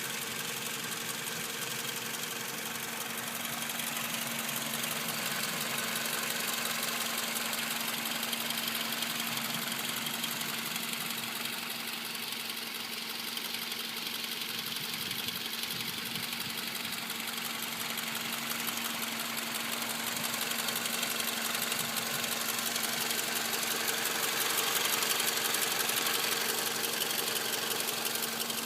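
2005 Toyota Camry four-cylinder engine idling with a steady, fast rattle, which the owner wonders may come from a failing water pump.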